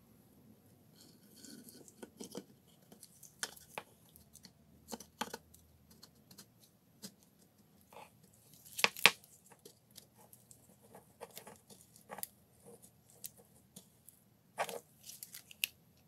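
Irregular sharp clicks and knocks of plastic and metal motor parts being handled and pressed into a drill's plastic housing. The loudest is a pair of clicks about nine seconds in.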